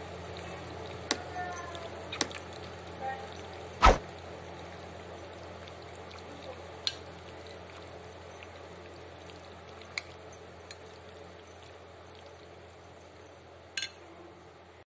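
Metal spoon stirring sauce-coated chopped vegetables and chicken in a glass bowl, with several sharp clinks of the spoon against the glass, the loudest about four seconds in. A steady low hum runs underneath.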